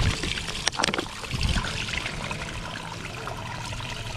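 Spring water running from a stone fountain's spout and splashing into the stone basin below, with a plastic water bottle held under the stream near the end. A few sharp clicks come just under a second in.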